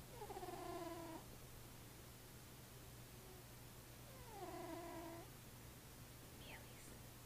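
Faint snoring: two pitched, whistle-like snores about four seconds apart, each lasting about a second and falling in pitch.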